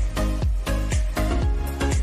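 Background electronic dance music with a steady kick-drum beat, about two beats a second.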